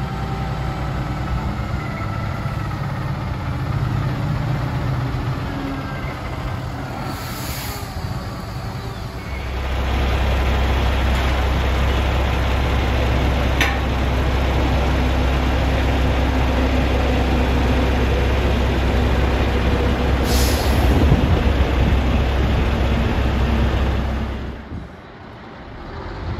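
Heavy log trucks' diesel engines running as they pull through, the low drone growing louder and steadier about ten seconds in. Two short air-brake hisses, one about a third of the way in and one about three-quarters through.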